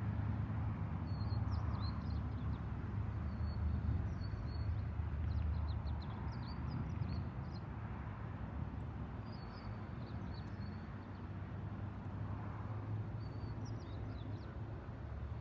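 Outdoor ambience: a steady low rumble, with small birds chirping briefly every second or two.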